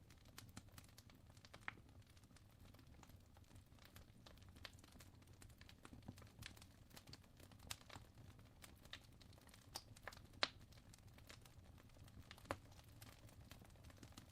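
Wood fire crackling faintly: irregular small pops and snaps over a low steady rumble, with the sharpest pop about ten seconds in.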